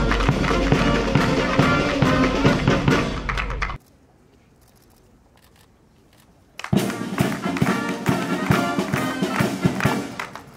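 Brass band playing ceremonial music with steady held chords and drum beats. It stops suddenly about four seconds in, leaving about three seconds of low background. The band starts again and plays until near the end, with hand clapping.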